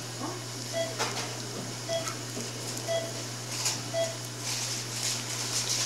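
Operating-room patient monitor beeping about once a second, one short identical tone each time, the pulse beep that tracks the patient's heartbeat, over a steady electrical hum. Faint rustling and clicks of instruments being handled come in between.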